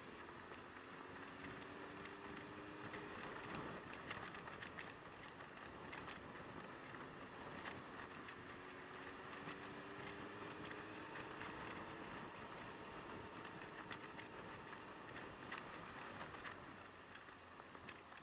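Yamaha YZF600R Thundercat sport bike on the motorway: steady wind and road noise with the faint note of its inline-four engine underneath, the pitch rising slowly twice, about a second in and again around eight seconds in.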